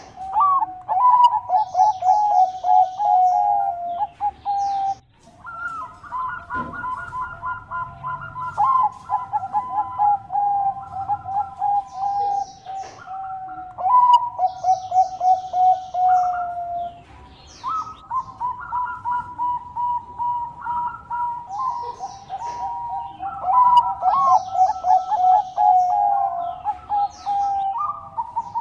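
Perkutut Bangkok (zebra dove) cooing in long runs of quick, pulsed notes, the phrases repeating with short breaks, at times on two or three pitches at once as the doves answer each other. Faint high chirps of small birds are heard now and then.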